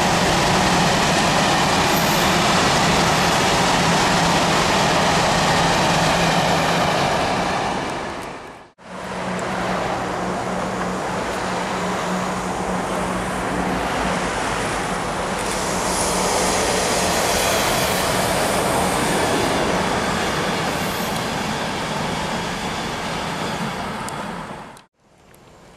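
Long freight train of covered hopper wagons rolling past, a loud steady rumble and rush of wheels on rail. It cuts off sharply about nine seconds in, followed by steady road-traffic noise with a low hum as cars pass.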